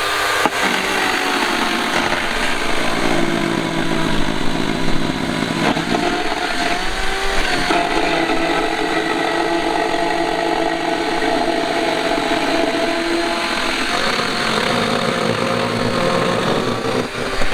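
Small cordless electric chainsaw running and cutting through wood, its motor whining steadily with the pitch dipping a few times as the chain takes load. It cuts off near the end.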